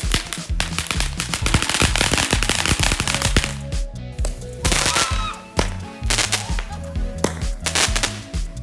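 Fireworks going off in a rapid run of bangs and crackles, dense for the first three seconds or so, with further bursts about five seconds in and near the end, over background music with a steady beat.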